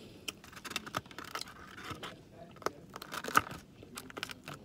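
Close-miked eating sounds: chewing food with irregular wet clicks and crackles, one sharper click about three and a half seconds in.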